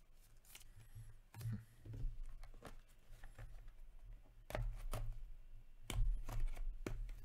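A small cardboard trading-card box and its plastic wrap being handled and opened by hand. Scattered crinkles and clicks, few at first and busier in the second half.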